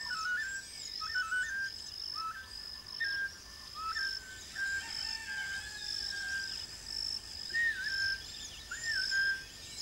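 High whistled calls in short phrases that step up and down in pitch, repeating about once a second, over a steady high-pitched pulsing drone.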